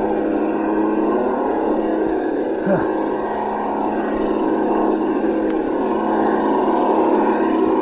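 Traxxas TRX6 6x6 RC crawler's electric motor and gear drivetrain whining steadily as it crawls over rocks.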